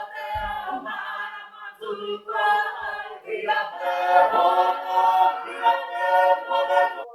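Maori cultural performance group singing together, several voices with long held notes.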